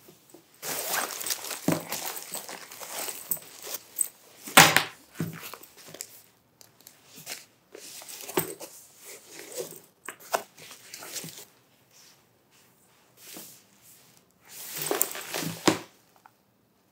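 Polyester bags rustling, crinkling and knocking together as an armful of them is shuffled and rearranged. The sound comes in irregular bursts, and the loudest is a sharp thump about four and a half seconds in.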